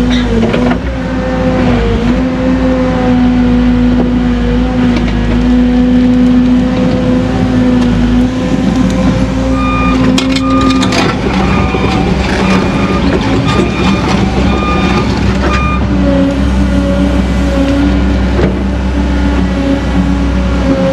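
Excavator's diesel engine and hydraulics running under load, heard from inside the cab, its steady whine dropping in pitch about halfway through and rising again later as the controls are worked. A run of evenly spaced beeps sounds in the middle, with a few sharp knocks around the same time.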